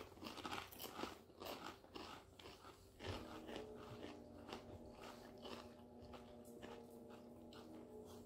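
Two people chewing Doritos corn chips, with a run of crisp crunches a few times a second that is louder in the first three seconds and then fades to softer chewing. A faint steady hum comes in about three seconds in.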